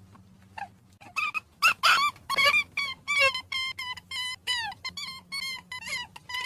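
Rabbit squeaking: a rapid run of short, high-pitched squeaks, several a second, starting about a second in, some sliding down in pitch.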